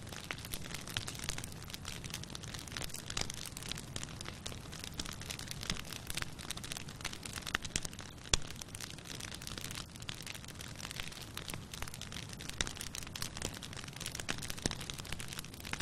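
Campfire burning with steady crackling and popping, many small snaps over a low rush of flame, and one louder pop about eight seconds in.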